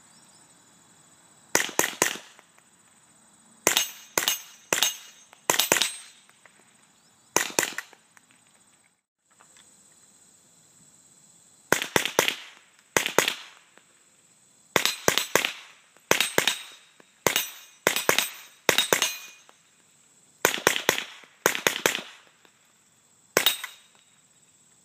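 Suppressed Ruger 10/22 with a 4.5-inch barrel and CAC-22 suppressor firing .22 LR semi-auto: about seventeen muffled cracks at an uneven pace, sometimes less than a second apart. Each crack is followed almost at once by a short ring from the steel plate being hit at 25 yards.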